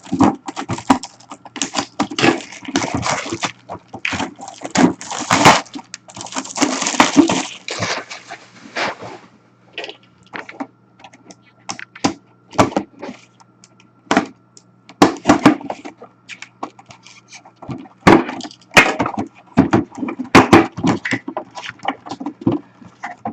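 Packaging of a collectibles box being opened and handled: an irregular run of crackles, rustles, clicks and knocks, dense at first, sparser in the middle, then dense again near the end.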